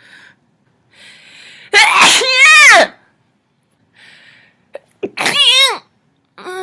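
A person sneezing loudly twice, each sneeze preceded by a quick breath in.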